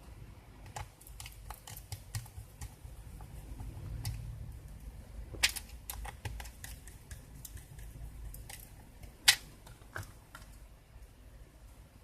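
Irregular small clicks and taps of plastic and metal parts being handled on an HP ProBook laptop's underside during disassembly, with two sharper, louder snaps, one about halfway through and one a few seconds later.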